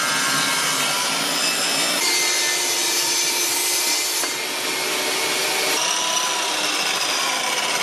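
Power saws cutting through a small block of walnut: a miter saw and a Skil table saw running steadily through the wood. The sound changes about two seconds in and again near six seconds as one cut gives way to the next.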